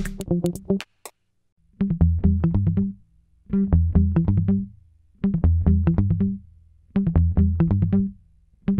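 Instrumental background music: a short riff of notes over a bass line, played four times with brief silences between, before the full beat comes back in at the end.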